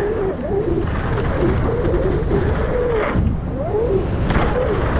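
Santa Cruz V10 downhill mountain bike descending fast on a dry dirt trail: steady wind buffeting and tyre rumble, with a wavering whine underneath and two short knocks from bumps about three and four seconds in.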